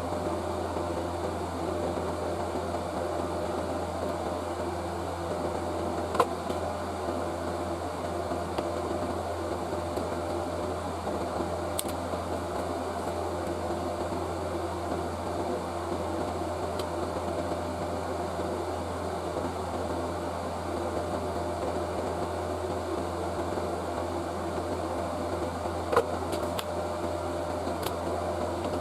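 An electric fan running steadily, an even whir over a low hum, with two brief clicks: one about six seconds in and one near the end.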